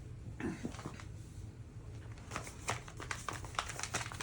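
Light rustling and a scatter of soft ticks from a diamond-painting kit's paper and plastic packaging being handled, mostly in the second half.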